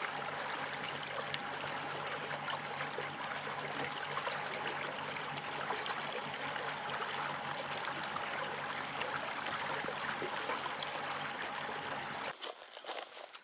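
Water rushing and lapping along a small boat's hull as it moves, over a steady low motor hum with a faint thin whine. It all cuts off about a second before the end.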